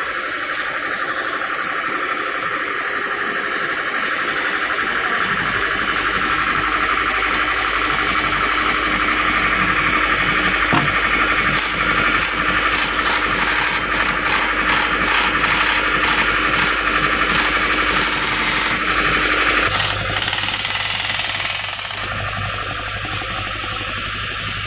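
Excavator's diesel engine running under a steady loud hiss, with a stretch of rapid clicking and rattling in the middle as work goes on at its track chain. Near the end the hiss drops away and a lower engine hum takes over.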